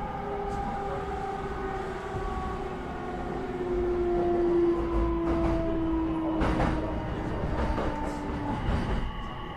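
Interior of an electric commuter train running on the rails, with a low rumble and a motor whine of several tones that falls slowly in pitch as the train slows for a station. A few clacks of the wheels over rail joints come near the end.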